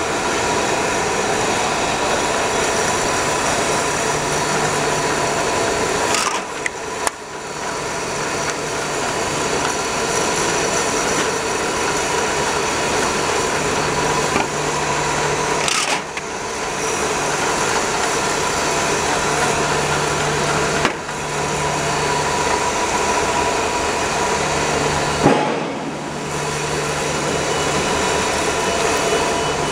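Can conveyor line running steadily: its drive motor hums under a dense clatter of empty aluminium cans riding the chain. A few brief knocks break in along the way.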